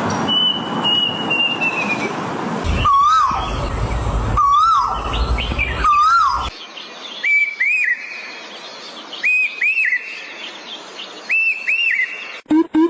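Birds calling in turn. First comes a short falling whistle, then three loud arched calls about a second and a half apart over a low rumble. After a break, a different, higher bird gives a quick double note three times, about two seconds apart.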